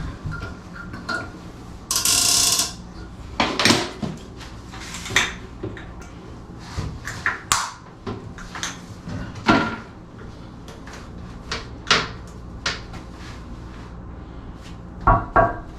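Irregular clicks, knocks and a short rasp of toilet parts and hardware being fitted and locked together by hand.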